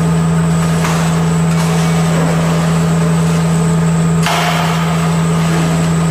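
Steady, loud hum of dairy processing machinery with a strong low tone. About four seconds in, a sudden loud hiss starts and fades away.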